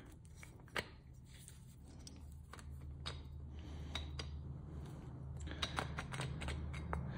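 Faint scattered metallic clicks and clinks of motorcycle clutch friction plates and steels shifting on the clutch boss as the removed clutch pack is handled, with a cluster of quick clicks near the end, over a low steady hum.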